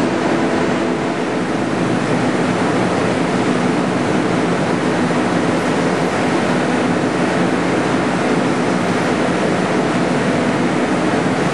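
ProJet HD3000 multi-jet 3D printer running as it prints: a steady mechanical whir with a few low, steady hum tones.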